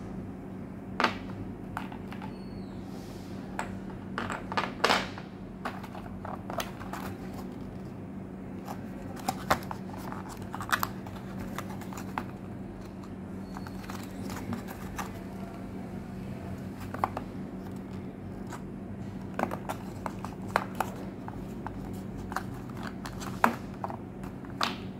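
Scattered small clicks, taps and scrapes from handling a glass perfume bottle and its cardboard box on a tabletop, over a steady low hum.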